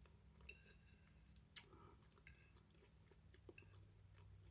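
Faint chewing of a mouthful of food, with a few soft scattered mouth clicks and smacks, over a low steady hum.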